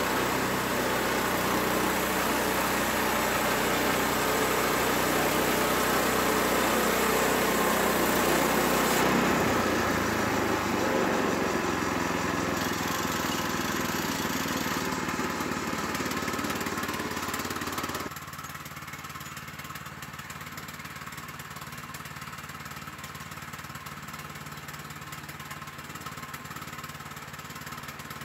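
Small gas engine of a portable band sawmill running steadily. It drops sharply in level about two-thirds of the way through and runs on more quietly.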